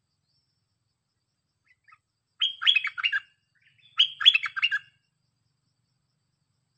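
Red-whiskered bulbul singing: two short phrases of quick whistled notes, about a second apart.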